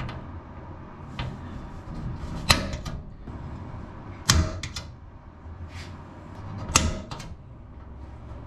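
Center punch striking rivet heads on an aircraft spar to mark them for drilling out: three sharp metallic strikes about two seconds apart, each with a brief ring, and a few fainter taps between.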